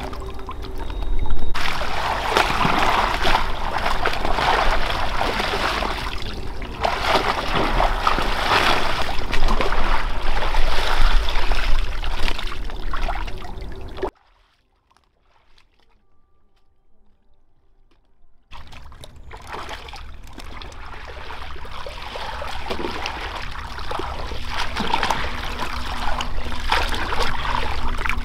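Water splashing and trickling in uneven strokes, broken by a few seconds of near silence about halfway through.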